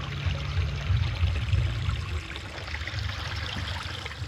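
A Kawasaki KRX4 1000 side-by-side's parallel-twin engine running at low speed while its tyres splash and churn through shallow creek water. The engine rumble swells about a second in.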